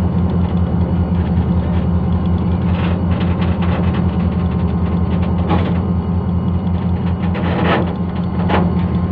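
Diesel locomotive engine running at close range with a steady, deep drone as it moves a goods train slowly, with a few short clanks from the train along the way.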